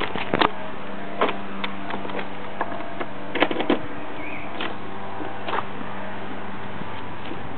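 A few clicks and knocks as a key is worked in the Kymco Super 8 scooter's seat lock and the seat latch releases to open the seat, with a quick cluster of clicks about three and a half seconds in. A steady low hum runs underneath.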